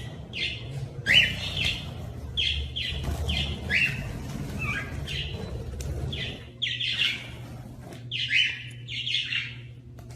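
A bird chirping repeatedly in short calls, roughly one or two a second, over a low steady hum.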